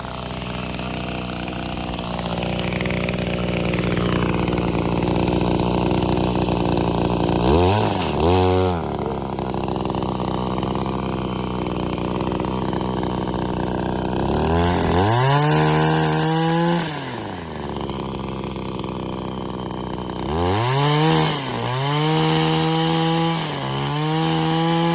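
Gas two-stroke pole saw (Echo 25.4cc) idling and then revved up to full throttle three times as it cuts overhead branches, the engine pitch sweeping up, holding, and falling back to idle; the last run is the longest.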